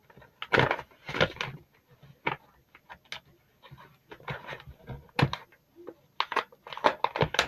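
Hard plastic packaging of small pencil-top erasers being pried open by hand: irregular sharp clicks and crinkles, a few louder snaps among them.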